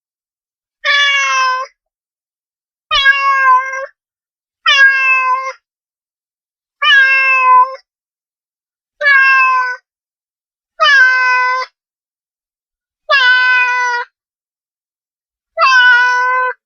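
A domestic cat meowing over and over: eight loud, drawn-out meows, each just under a second long, about two seconds apart.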